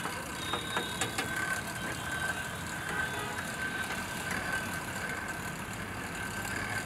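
Hand-cranked blower whirring steadily with a constant high whine as it is turned, forcing air into a charcoal grill's coals to fan the fire.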